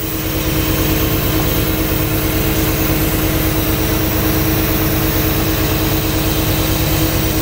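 Chevy 350 (5.7-litre TBI) V8 idling steadily with a valve cover off, while a rocker arm nut is tightened a quarter turn at a time past the point where its valve clacking stopped during a running valve adjustment.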